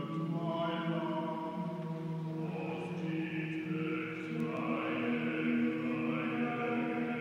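Chamber choir singing a cappella: the lower voices hold a steady chord, while from about halfway through the higher voices slide up and down above them.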